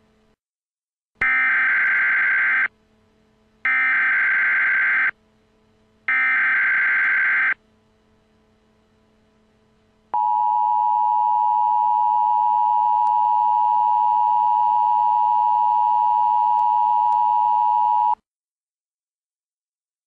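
Emergency Alert System signal: three shrill digital data bursts of the SAME header, each about a second and a half long, then the steady two-tone EAS attention signal for about eight seconds, which cuts off abruptly. Together they mark the start of an emergency alert broadcast.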